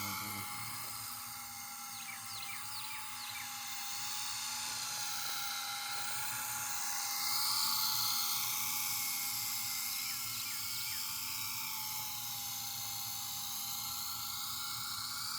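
RC helicopter in flight: a steady high whine from its motor and rotors, briefly louder about seven to eight seconds in.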